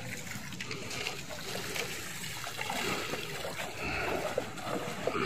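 Muddy floodwater trickling and splashing.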